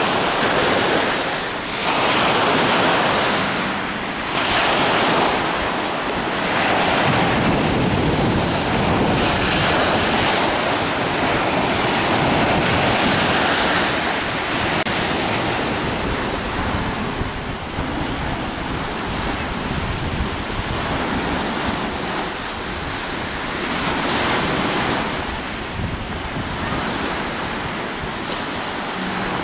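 Rough sea surf breaking on the shore, surging every few seconds, with strong wind buffeting the microphone.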